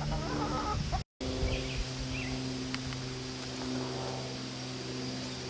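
Chickens clucking briefly near the start, over a steady low mechanical hum. The sound drops out for a moment about a second in, then the hum carries on with a few small bird chirps.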